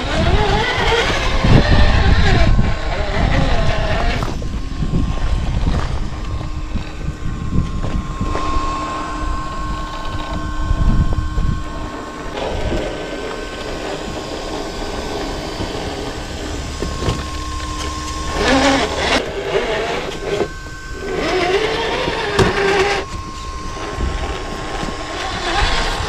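Traxxas TRX-4 RC crawler's electric motor and geared drivetrain whining as it drives, the whine holding steady for stretches and rising and falling with the throttle, over rough low scraping and rumbling from the wheels on the ground.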